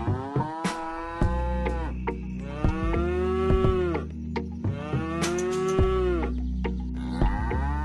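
Cow moos repeated one after another, about one every two seconds. Each is a long call that rises then falls in pitch. Beneath them is a steady low drone with a few sharp clicks.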